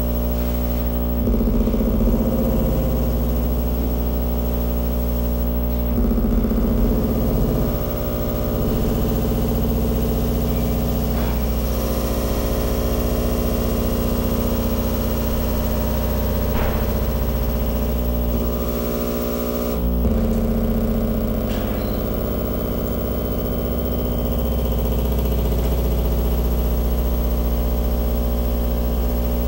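Live experimental electronic noise from a video-feedback performance rig: a dense, steady buzzing drone built from layered hum tones. Its texture shifts abruptly a few times, about a second in, around six seconds in and just before twenty seconds.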